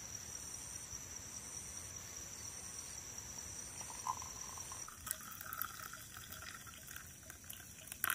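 Hot liquid poured from a blackened camp cooking pot into a stainless steel mug to make coffee; the pouring starts about five seconds in, after a short clink of the pot. Insects chirp steadily in the background, one of them pulsing about once a second.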